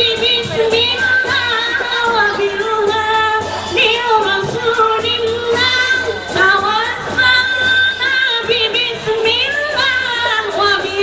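Music with a woman singing a melody over accompaniment.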